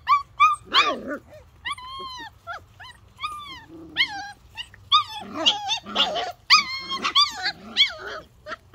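Goldendoodle puppies whining and yipping in a string of short, high cries that rise and fall, several crying at once in the second half. The puppies have got out of their pen and are crying to be let back in.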